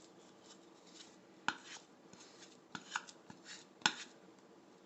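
Thick rye sourdough dough being stirred and scraped in a bowl by hand: faint scraping with four sharp knocks of the utensil against the bowl.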